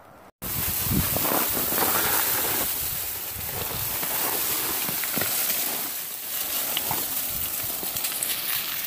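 Footsteps scuffing and crunching over granite rock and dry leaves while scrambling downhill, with brush rustling against the body. The sound cuts out for a moment just after the start, then comes in abruptly.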